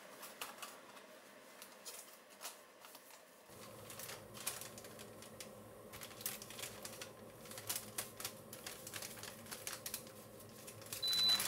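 Stiff paper tea packaging crinkling and crackling as it is folded and rolled shut by hand: a run of crisp irregular crackles, busier after the first few seconds. Just before the end a loud, steady high tone starts.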